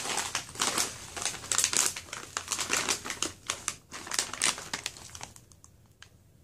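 Plastic snack pouch of Flackers flax-seed crackers crinkling as it is pulled from a box of shredded paper filler and handled, for about five seconds, then fading away.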